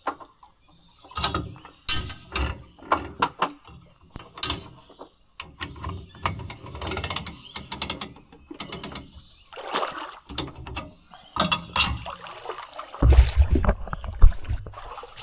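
Hand winch on a boat trailer being cranked, its ratchet pawl clicking in short irregular runs as the boat is winched onto the trailer. A loud low rumble near the end.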